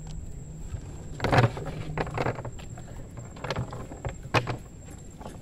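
Irregular knocks and thumps on a small wooden boat's hull as a cast net and its catch are handled in the bow, about five over the few seconds, the loudest about a second and a half in.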